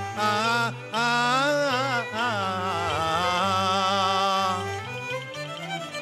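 Cantonese opera music: a wavering, sliding melody line with heavy vibrato over a steady low instrumental accompaniment, thinning out about five seconds in.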